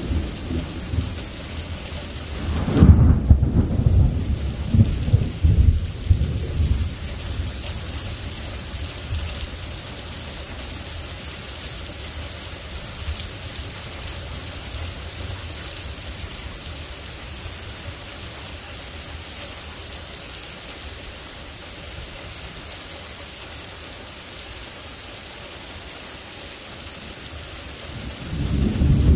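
Heavy rain falling steadily, with a loud peal of thunder about three seconds in that rumbles on for a few seconds and dies away. Thunder starts rumbling loudly again near the end.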